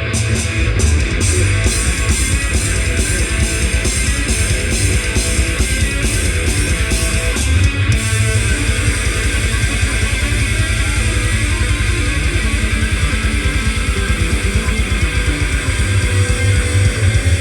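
Loud heavy rock music with guitar, bass and drums, with a fast regular beat in the highs that stops about eight seconds in.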